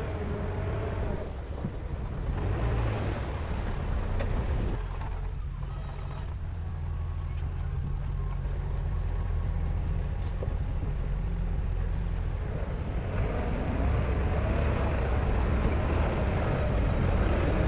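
Diesel engine of a Komatsu D31 crawler bulldozer running while working. Its note eases for several seconds in the middle and picks up again near the end.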